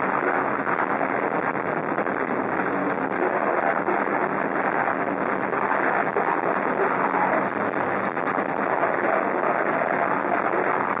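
A melodic death metal band playing live at full volume: a steady, dense wall of distorted electric guitars and drums.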